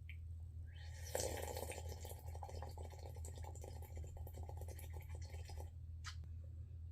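Someone slurping hot coffee: an airy sucking sound full of small crackles, starting about a second in and lasting about four and a half seconds. A brief sharp sound follows near the end, over a steady low hum.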